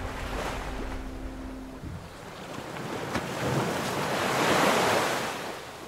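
Sea ambience of waves and wind. A boat engine's steady hum cuts off about two seconds in, then a wash of wave noise swells, peaks near the end and fades.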